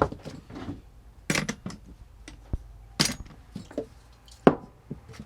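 Small objects and tools being picked up and set down on a cluttered workbench: a few separate knocks and clatters, the loudest about four and a half seconds in.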